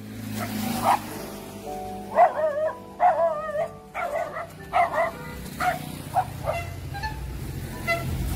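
Small white spitz puppy barking repeatedly in short, high yaps, about a dozen of them, a few drawn out with a wavering pitch, at a horse. Background music runs underneath.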